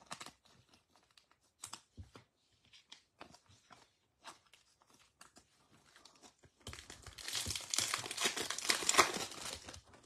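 Scattered light clicks and taps of trading cards being handled, then, about seven seconds in, a Topps Chrome baseball card pack's wrapper crinkling and tearing open for about three seconds, the loudest sound.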